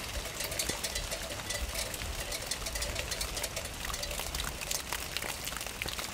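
Steady rain together with a passing freight train, a continuous low rumble under a rapid irregular clatter.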